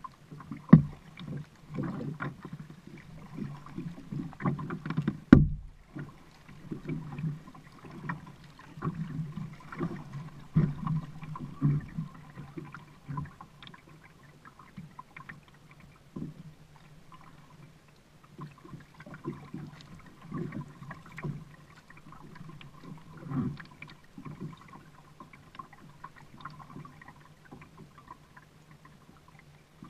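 Kayak being paddled: the paddle blades dip and splash in an uneven rhythm, with sharp knocks of the paddle against the kayak about a second in and again about five seconds in.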